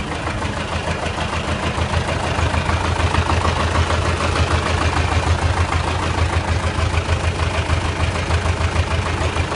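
MTZ tractor diesel engine running steadily at idle with an even rapid pulse. Its injection timing has just been adjusted to cure a knock.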